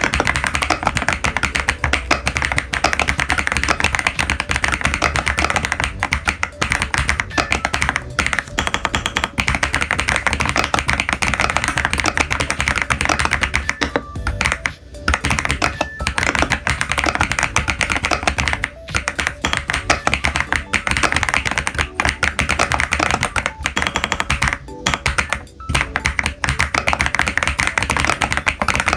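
Fast typing on a Womier VK66 mechanical keyboard: a dense, continuous run of keystroke clacks with a few brief pauses.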